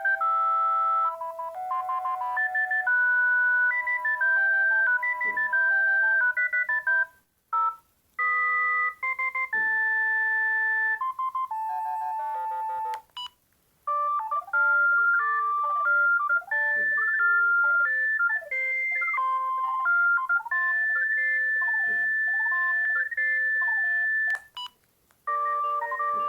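Panasonic EB-GD93 mobile phone playing its built-in ringtones one after another: electronic beeping melodies. The tune changes after short breaks about seven, thirteen and twenty-four seconds in, and the third tune has fast rising and falling sweeps.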